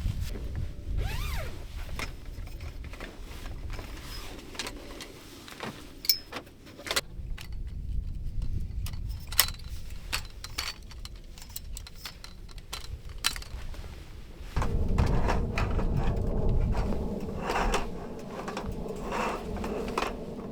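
A string of sharp clicks and knocks from objects being handled, over low rumble; about fifteen seconds in, a steadier hum with a held low tone sets in beneath the knocks.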